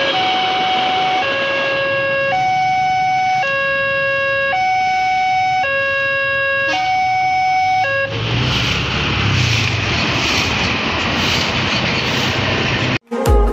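Railway level-crossing electronic warning alarm sounding two alternating tones, switching about once a second, which stops about eight seconds in. Road traffic noise, with a truck passing, follows, and music starts just before the end.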